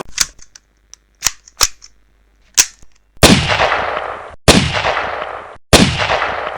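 Walther P22 .22 pistol gunfire: a few short, sharp cracks, then from about three seconds in three loud shots about a second and a quarter apart, each ringing away behind it.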